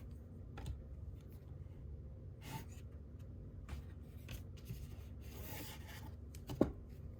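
Baseball cards being handled and flipped through by hand: soft rubbing and sliding of cards against each other, with a few light taps, a short rustle and one sharp click near the end.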